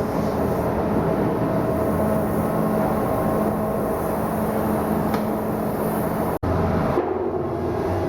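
Steady hum of heavy shipyard machinery, with a brief cut-out about six and a half seconds in, after which the hum carries on at a slightly different pitch.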